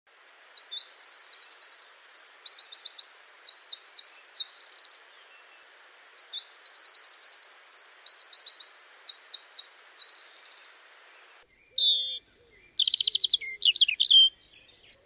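Songbird singing: bright, fast trills and chirps, the same phrase heard twice over a steady hiss. After about eleven seconds the hiss drops away and a different run of chirps and trills follows.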